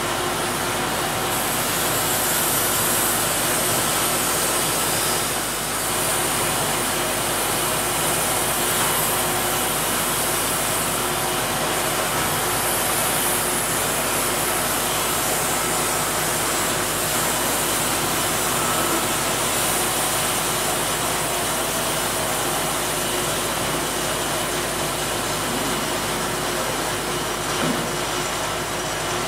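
Steady mechanical din of a Wood-Mizer LT50 band sawmill running, with no breaks or distinct knocks.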